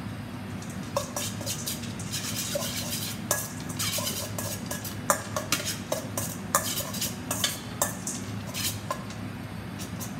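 A metal utensil stirring shredded chicken and toasted almonds with dressing in a stainless-steel mixing bowl, with irregular clicks and scrapes of metal against the bowl.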